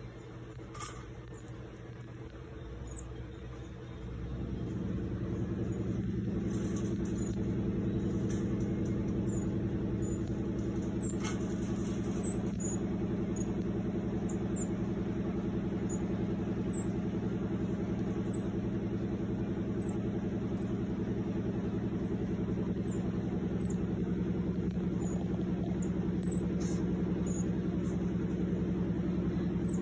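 A steady low machine hum comes on about four seconds in and carries on. Many short, very high chirps sound over it, typical of a marmoset's calls.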